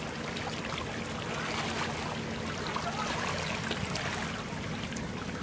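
Bow wash of a low-riding loaded river barge splashing and rushing along its hull, over a steady low engine hum.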